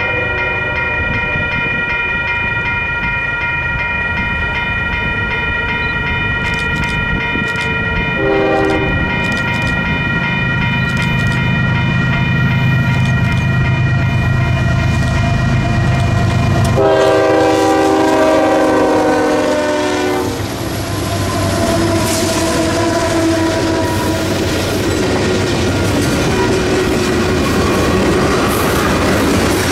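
Union Pacific GE C45ACCTE diesel locomotive approaching and blowing its horn: a long note for the first several seconds, a short note, then a loud blast about 17 seconds in as the locomotive reaches the camera, with the engine's low rumble growing as it nears. The freight cars then roll past with the clickety-clack of wheels on the rails.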